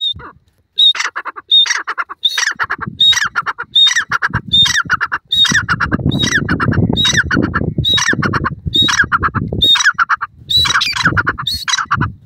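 Grey francolin (teetar) giving its loud repeated call, about sixteen phrases in a steady run, each a sharp high note followed by a quick stutter of lower notes. A low rumble lies under the calls through the middle.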